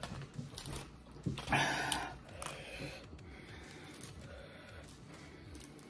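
Soft sounds of eating at a table: a tortilla being torn and handled and food picked up from a plate, with a few small clicks early on and a short noisy breath about a second and a half in.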